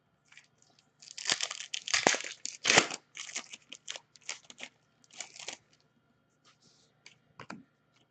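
Crinkly foil wrapper of a trading-card pack being torn open and crumpled, in a run of crackling bursts that is densest in the first few seconds and thins out, with a few soft handling sounds near the end.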